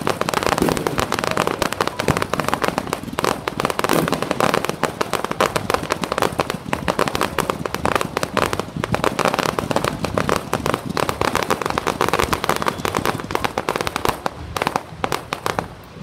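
Aerial fireworks going off in a dense barrage: rapid overlapping bangs, pops and crackles that thin out near the end.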